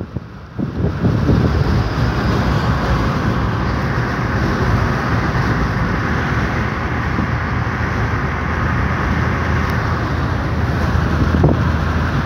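Steady road and wind noise of a car driving along at speed, heard from inside the cabin, with a low rumble under it. It is briefly quieter in the first second.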